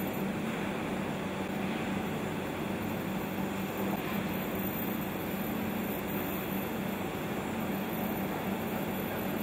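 Steady drone of industrial plant machinery with a constant low hum, unchanging throughout, with no knocks or distinct events.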